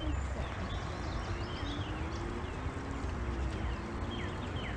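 Outdoor ambience of small birds chirping in short rising and falling calls over a steady low rumble.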